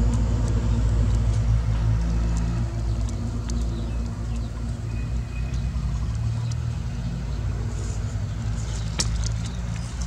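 Steady low rumble of an idling engine, with a brief high tone about five seconds in and a sharp click near the end.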